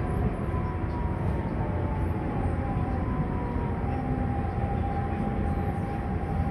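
Siemens C651 MRT train running between stations, heard from inside the carriage: a steady rumble of wheels on track, with a faint high whine that sinks slightly in pitch over the first few seconds.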